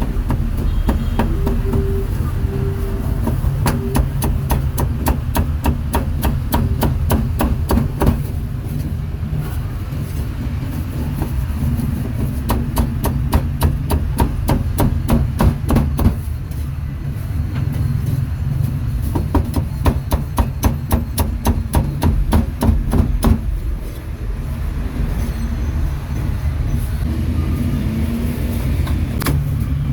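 Meat cleaver chopping pork on a cutting board, sharp knocks in fast runs of about three strokes a second with short pauses, over a steady low rumble of street traffic.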